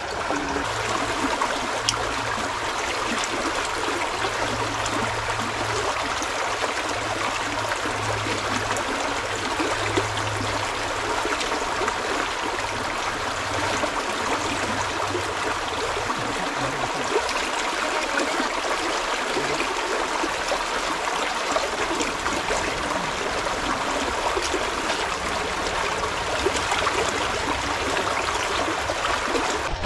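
Shallow mountain stream running over rocks, a steady, even wash of water.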